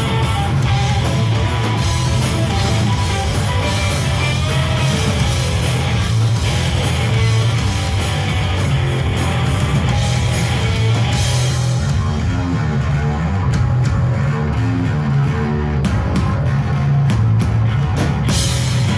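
A three-piece rock band playing loud and live: distorted electric guitar and bass over a drum kit. About two-thirds of the way through a cymbal crash comes, and the drumming turns to sparser, separate hits.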